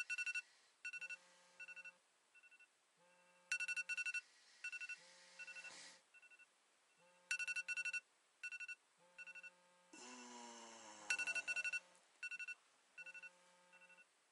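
Smartphone alarm ringing: a repeating phrase of short electronic beeps, each opening with a quick run of rapid beeps, starting over about every four seconds. A short groan about ten seconds in, and the alarm is switched off near the end.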